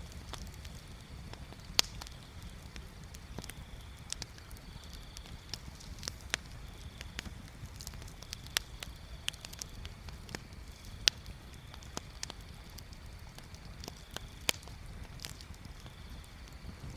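Bonfire crackling: irregular sharp pops and snaps over a steady low rumble. A faint high trill comes and goes in short stretches behind it.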